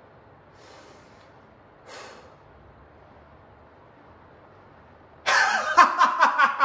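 A man's two short breaths in a quiet room, then about five seconds in a sudden burst of loud, pulsing acted laughter that trails off in shorter bursts.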